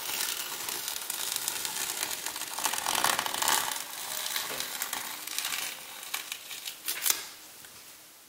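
Masking tape being peeled off the edges of a painted canvas: a long crackling rip made in several pulls. It is loudest about three seconds in, with another sharp tear near seven seconds, and it fades out near the end.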